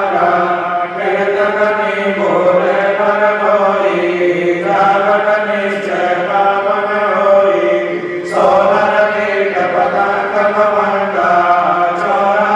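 Voices chanting the evening aarti, a devotional chant, in long held notes. There is a brief break in the melody about eight seconds in.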